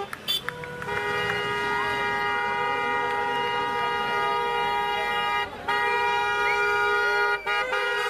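Several car horns honking together in long, held celebratory blasts from a slow convoy of cars. The horns break off briefly about five and a half and seven and a half seconds in.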